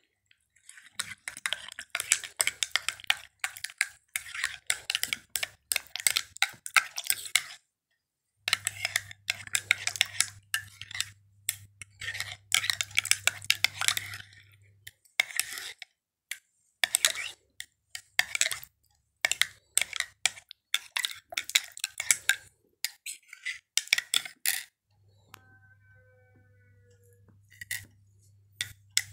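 Metal spoon stirring a milky drink in a ceramic mug, clinking rapidly against the sides in several runs of a few seconds each, with short pauses between.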